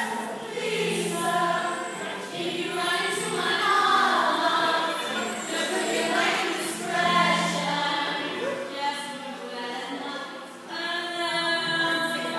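Music: a song sung by several voices together over accompaniment.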